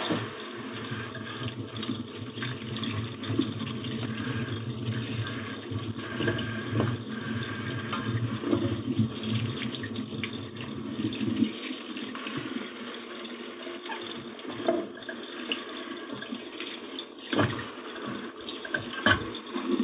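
Kitchen faucet running into the sink while fruit is rinsed under it. The deeper part of the water sound drops away about halfway through, and a few short knocks come near the end.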